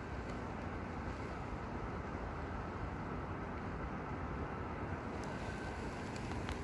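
Steady urban background noise: a low, even hum of distant city traffic, with a few faint ticks near the end.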